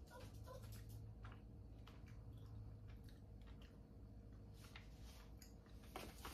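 Near silence: faint chewing and small clicks of plastic packaging as mochi is eaten, with a sharper clack near the end as a hand reaches into a clear plastic mochi tray.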